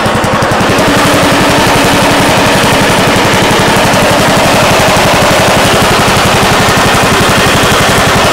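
Riding lawn tractor's small engine running steadily and loud, its exhaust beating in a rapid, even pulse through a resonation chamber fitted at the rear.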